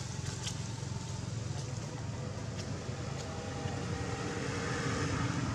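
Steady low outdoor background rumble with a few faint clicks.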